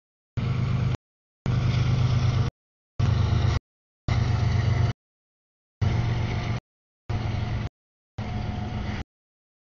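CSX diesel-hauled intermodal freight train passing close by: locomotive engine drone and rolling noise. The sound keeps cutting in and out, about seven short chunks with dead silence between them, which points to dropouts in the recording's audio.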